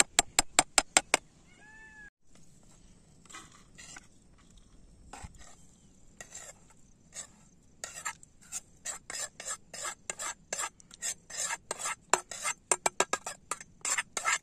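A metal spoon on a steel frying pan: a quick run of sharp taps in the first second, then, from about halfway on, repeated scrapes and clinks as crumbly fried food is scraped out of the pan onto a steel plate.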